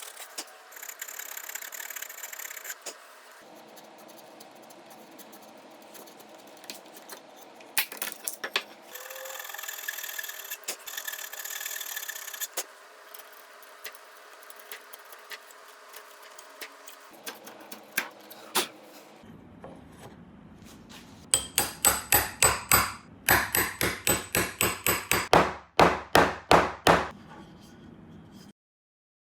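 Hand tools working Korean mahogany: scraping and rubbing on the wood in several short stretches with scattered clicks and knocks. Near the end comes a run of quick, even strokes, about three or four a second, like sawing or rasping.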